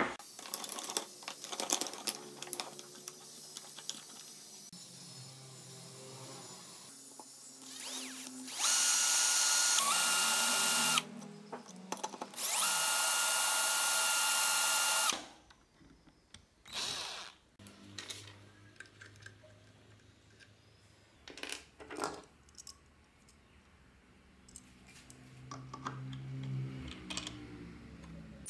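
Electric drill running in two bursts of about two and a half seconds each with a steady whine, drilling out the bore of an aluminium timing pulley. Before and after, fainter clicks and scrapes of metal parts being handled.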